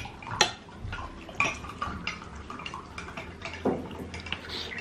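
Kitchen clatter: dishes and utensils clinking and knocking against each other, with a few sharper clinks about half a second, a second and a half, and nearly four seconds in.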